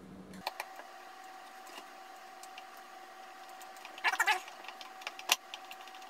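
A 1.5-inch cabinet screw being driven by hand into a pine board with a Leatherman Skeletool CX and a T15 Torx bit, without a pilot hole: scattered small clicks and creaks as the screw turns into the wood, with a louder creak about four seconds in. A faint steady hum runs underneath.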